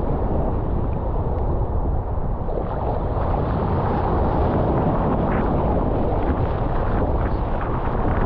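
Strong wind buffeting the microphone, a steady low rumble, over the rush of breaking surf and water around a kayak.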